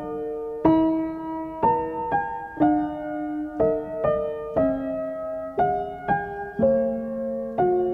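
Background piano music: a melody over chords, with new notes struck about twice a second, each ringing on until the next.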